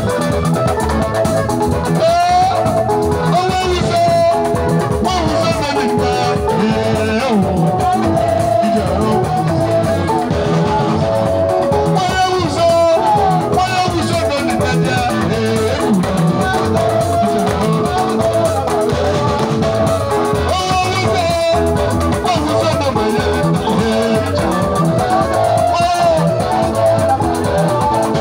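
Live band music: electric guitar melody lines over a drum kit and a pair of conga-style hand drums, playing steadily without a break.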